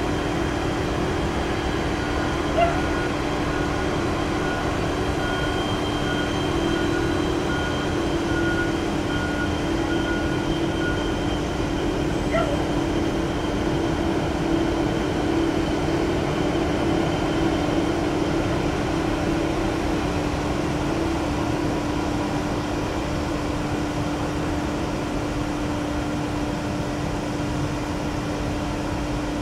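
Steady drone of a Boeing 747-400F's four turbofan engines at taxi power, heard from a distance, with a constant low hum. Two short, sharp sounds cut through it, about two and a half and twelve seconds in.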